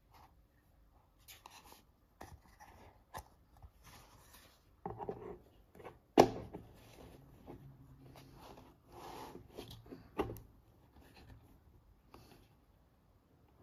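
Small objects being handled at close range: light rubbing and rustling with scattered clicks, the sharpest about six seconds in and another about ten seconds in.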